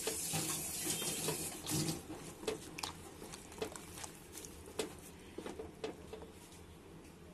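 Milk poured in a thin stream into a pan of thick custard, splashing for the first couple of seconds, then a wooden spatula stirring it with scattered small clicks against the pan, gradually quieter.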